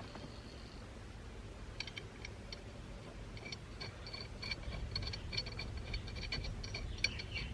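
Small metal hardware being handled: irregular light metallic clicks and jingles that start about two seconds in and come thicker in the second half, over a low steady background rumble.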